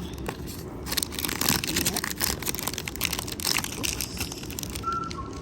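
Packaging being handled and opened: irregular crinkling and crackling of wrapping throughout.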